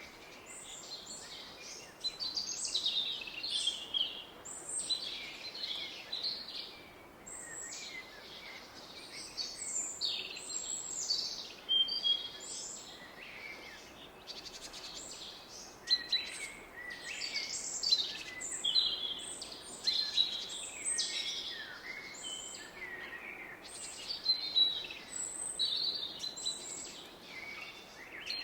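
Several woodland songbirds singing and calling over one another, with short varied phrases that rise and fall. Beneath them runs the steady low rush of a distant river.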